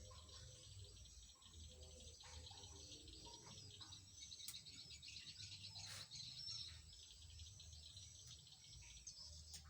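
Faint outdoor ambience: small birds chirping repeatedly and insects buzzing, with a few light clicks.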